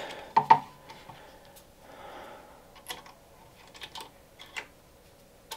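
Light bar's metal bracket and T-nuts clicking and tapping against the aluminium frame extrusion as they are fed into its channel. A sharper pair of clicks comes about half a second in, then scattered lighter taps.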